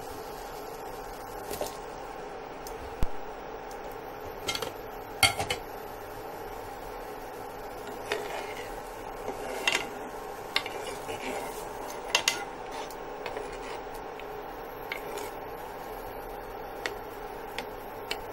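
A cooking spoon knocking and scraping against a nonstick pan while chicken and potato pieces are stirred in boiling water: scattered sharp clinks, the loudest about three and five seconds in, over a steady hum.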